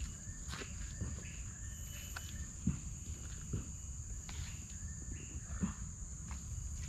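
Outdoor ambience: a steady high-pitched insect drone over a low rumble, with scattered knocks and a few short chirping calls.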